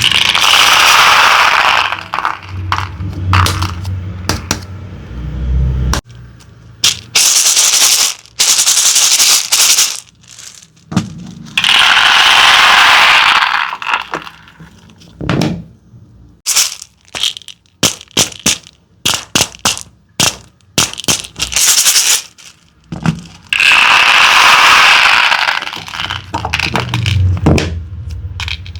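Small hard candies poured into plastic containers, clattering in four long rushes of a few seconds each, with scattered single clicks and taps of pieces between the pours.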